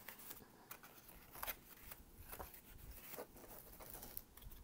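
Faint rustling and light taps of paper sheets being handled and flipped through, a few short rustles about a second apart.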